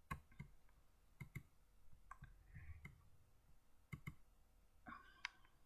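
Faint computer mouse clicks, several in quick pairs like double-clicks, as folders and files are opened.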